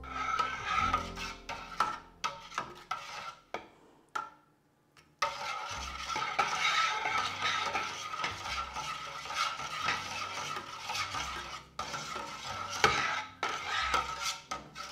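Stick blender mixing cold-process soap batter in a stainless steel pot, its motor running with a steady whine, along with a spatula stirring and knocking against the pot; the batter is being brought to trace. The sound cuts out for about a second partway through.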